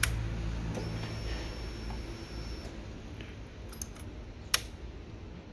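Ignition key turning in a motorcycle's key switch, with the keys on the ring jangling: a sharp click right at the start and another about four and a half seconds in. A faint high whine runs for about two seconds after the first click.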